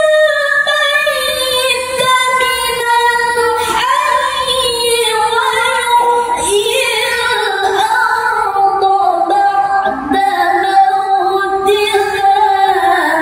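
A man's melodic Quran recitation (tilawah), sung in a high register in several long phrases of held, wavering notes. The voice stops at the very end.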